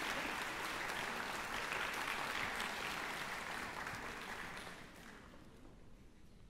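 Concert audience applauding, dying away about five seconds in to leave a quiet hall.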